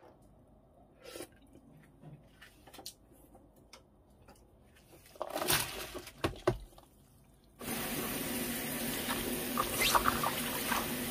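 Kitchen handling sounds: faint taps of a wooden spoon in seasoning brine in a bowl, then a few louder clatters around a plastic container lid about five to seven seconds in. Near the end a steady watery hiss with small crackles starts suddenly as gloved hands toss young radish greens with garlic.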